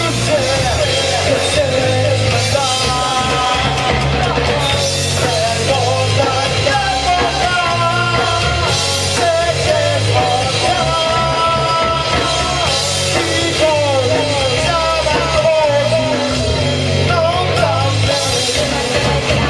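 Live rock band playing a song, with a lead voice singing over guitars, bass and drums.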